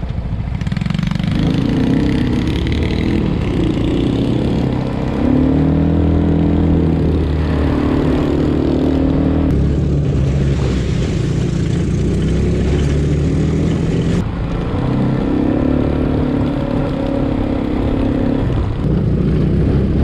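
Small single-cylinder engines of a mini jeep and an ATV running along a dirt trail, the pitch shifting up and down with the throttle.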